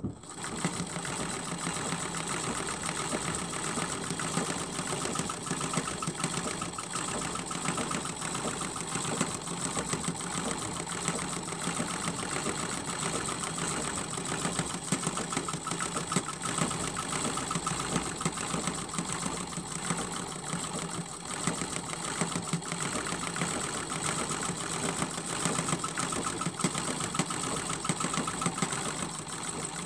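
Sewing machine starting up and running steadily, stitching through a layered quilt during free-motion quilting.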